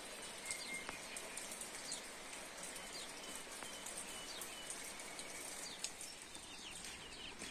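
Light, steady rain falling on garden foliage, with birds calling faintly now and then in short whistled notes and brief chirps.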